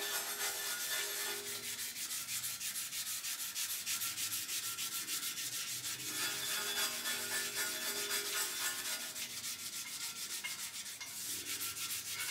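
Hand sanding of a primed 1977 Camaro Z28 bumper with a sanding block and sandpaper: rapid back-and-forth rubbing strokes, with the bumper humming faintly as it resonates under the sanding.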